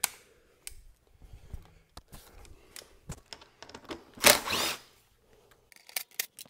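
Irregular small clicks and knocks of a hand tool and metal fasteners as the M6 Allen bolts are worked out of a motorcycle's tail section, with a louder scraping rustle about four seconds in and a quick run of clicks near the end.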